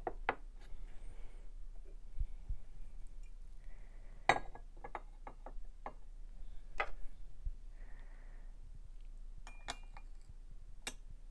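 Franz porcelain tea set pieces clinking together as the cup is set on its saucer and the spoon placed in it: a sharp clink about four seconds in, a quick run of lighter clinks soon after, and a few more near the end.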